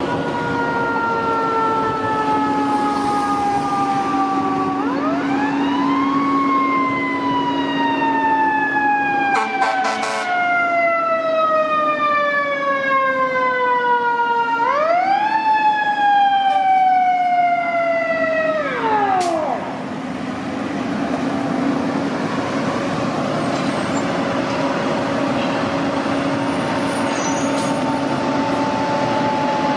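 Fire engine siren wailing. Its pitch sweeps up quickly twice and sinks slowly in between, and it winds down and stops about two-thirds of the way through. A steady low engine and traffic hum is left after it.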